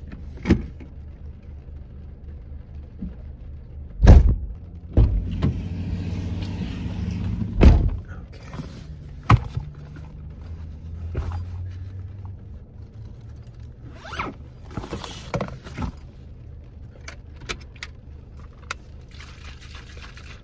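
Car doors and the rear hatch thudding shut, several heavy low thumps with the loudest about four seconds in and another near eight seconds, followed by the rustle of a backpack being handled.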